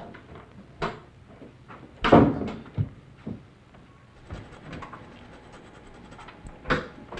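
Several sudden knocks and thumps at a wooden apartment door. The loudest comes about two seconds in, with smaller ones after it and another near the end.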